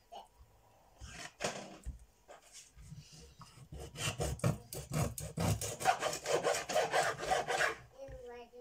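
Kitchen knife sawing back and forth through a whole sea bass behind the head on a wooden chopping board: a few strokes early on, then a fast, steady run of cutting strokes from about three and a half seconds in until shortly before the end.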